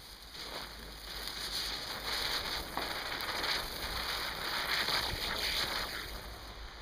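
Small ground-spinner firework ('Bienchen') hissing and fizzing as it spins and throws sparks. The hiss swells about a second in, wavers as it spins and dies down near the end.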